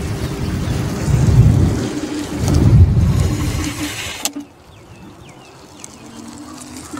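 Low, gusty wind and road rumble from a camera moving alongside, with a faint steady hum under it. It cuts off abruptly about four seconds in. What follows is much quieter outdoor air with a faint hum and a few short bird chirps.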